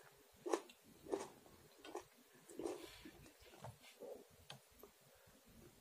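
A person chewing a mouthful of tomato with closed lips: faint, soft wet mouth clicks a little faster than once a second, thinning out near the end.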